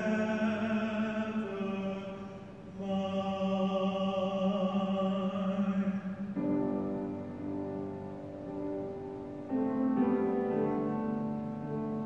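A slow worship song sung in long held notes, in phrases that break about every three seconds.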